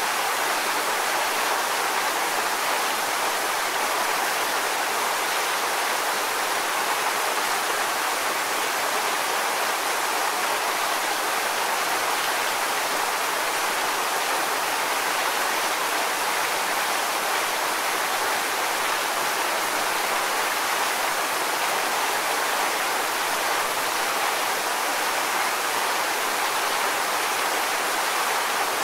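Waterfall: falling water in a steady, unbroken rush, bright and hissy with little deep rumble.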